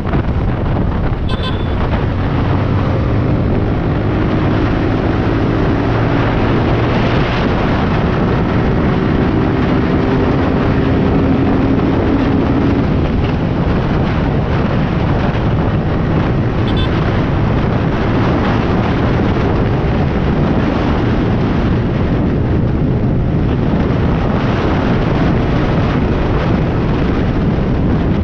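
Wind rushing over the helmet-mounted camera's microphone at road speed, with the motorcycle's engine note droning underneath, clearest in the first half.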